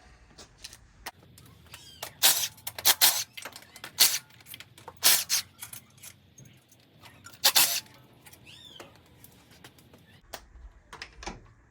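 Irregular metallic clinks and knocks from hand tools and parts being worked on while pulling an engine, several sharp strikes spread over the middle with lighter clicks between.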